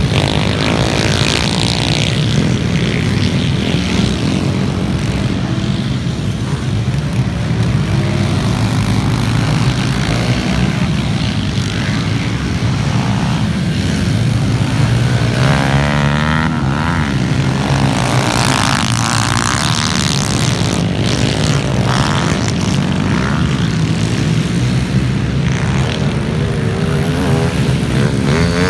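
Several pit bike and small dirt bike engines running together in a race, a steady engine drone with revs rising and falling as the bikes pass, most marked about halfway through and again near the end.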